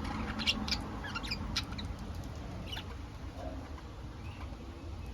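Pet budgerigars giving short, high-pitched chirps and squeaks, several in quick succession at first and fewer after about three seconds, over a low steady hum.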